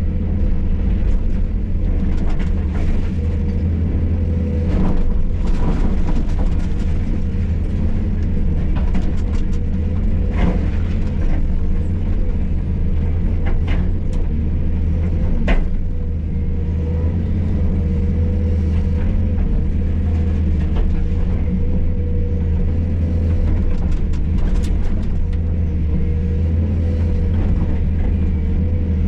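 Hydraulic excavator's diesel engine running steadily under work, heard from inside the cab, with a few sharp knocks from the bucket working the concrete rubble, the clearest about halfway through.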